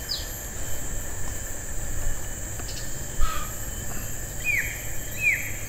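Outdoor ambience: a steady high-pitched insect drone over a low rumble, with a few short falling bird chirps, one at the start and two near the end. A single knock about three seconds in.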